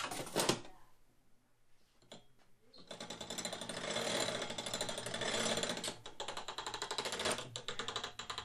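Hand-cranked pressed-penny machine being turned: its gears and rollers give a fast, continuous ratcheting clatter as they squeeze a penny flat into a souvenir. A few sharp clicks come right at the start, and the cranking clatter begins about three seconds in.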